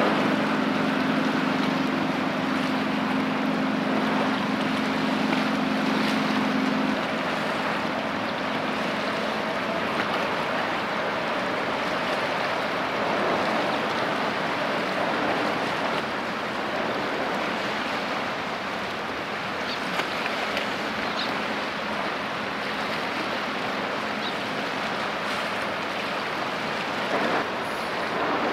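Container ship passing under way: a steady low engine hum over a constant rush of wind and water, with the hum fading out about seven seconds in.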